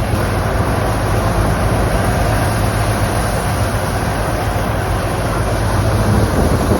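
Wheat thresher machine running steadily, a continuous mechanical din with a strong low hum, swelling slightly near the end.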